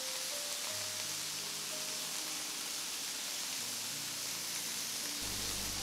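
Chicken kebabs on bamboo skewers sizzling steadily in an oiled grill pan over high flame, a constant frying hiss, with soft background music underneath.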